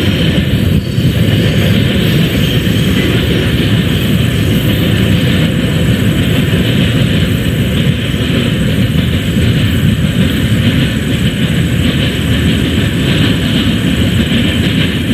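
A passing CSX train running steadily, a continuous rumble of rail and wheel noise with no breaks.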